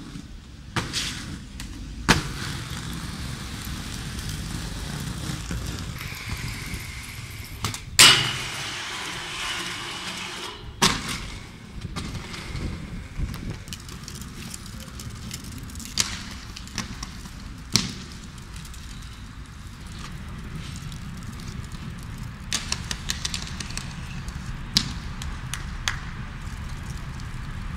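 Inline skate wheels rolling over stone paving, broken by sharp clacks of skates landing and striking the ground several times; the loudest, about eight seconds in, rings briefly after the hit.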